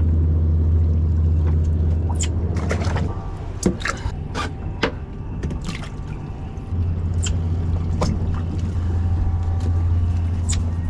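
Boat engine idling with a steady low hum that softens about three seconds in and comes back after about seven seconds. Over it come scattered sharp clicks and knocks from the sabiki rig and fish being handled on deck.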